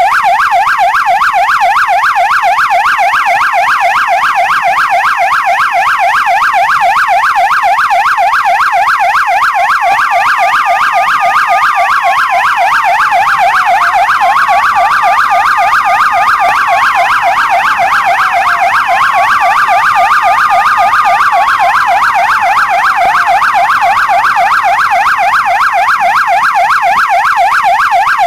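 Electronic police siren in a fast yelp, its pitch sweeping up and down several times a second without a break. From about ten seconds in, a slower wail is layered over it, about three times rising, holding, then gliding down, each cycle lasting roughly four to five seconds.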